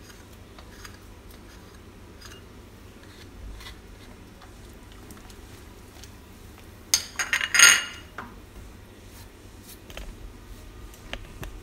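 Cookware and utensils clinking as a pot of broth is seasoned from a glass dish and stirred with a ladle. A quick run of clinks and a scrape comes about seven seconds in, with a few lighter taps near the end.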